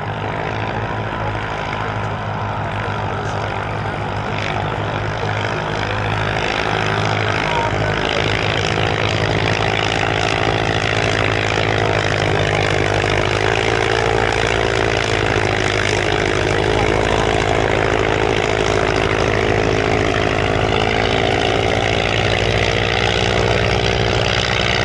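Propeller engine of the Bristol Boxkite replica biplane running steadily overhead in flight, its pitch drifting slightly and growing a little louder about six seconds in.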